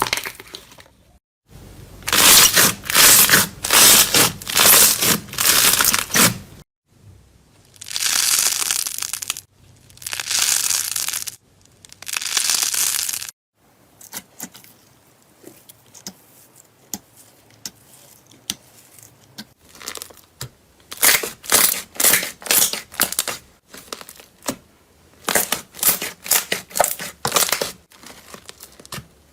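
Crisp crunching and crackling of a crunchy material being pressed and pulled apart, in several separate runs of quick crunches with a quieter stretch of faint clicks in the middle.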